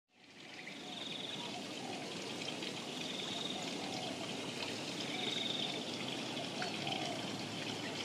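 Shallow mountain stream water running and trickling over stones, fading in over the first second. A faint high trill repeats about three times over the flow.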